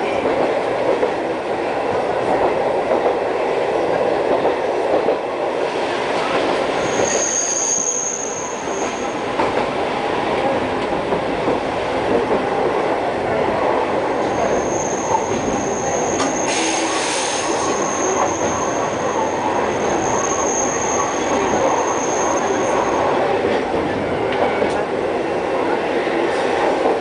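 Streetcar running along its track with a steady rumble, its wheels squealing in a high thin tone as it takes a sharp curve: once briefly, then again for about nine seconds.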